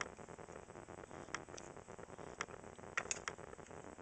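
Scattered small metallic clicks and ticks from a screwdriver and small screws and bracket parts being handled while a lamp socket is fastened to the clock mechanism. The clicks are irregular, with a quick cluster about three seconds in.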